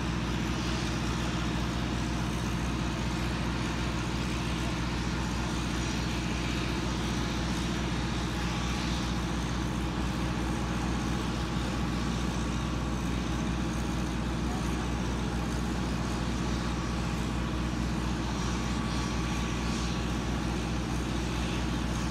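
Steady low drone of aircraft engines on an airport ramp, holding even throughout.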